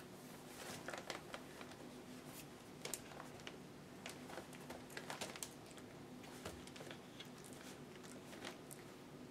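Faint rustling and scattered light clicks of puppies moving about on newspaper, paws pattering and paper crinkling, over a steady low hum.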